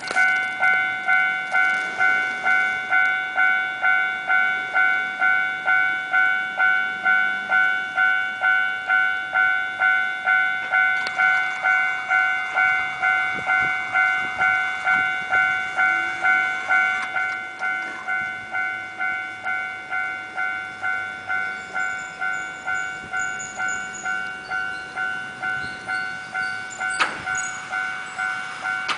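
Electronic warning bell of a cable-car level crossing, ringing in a steady repeated clang of a little under two strikes a second. It starts abruptly and gets softer about 17 seconds in. A single sharp click comes near the end.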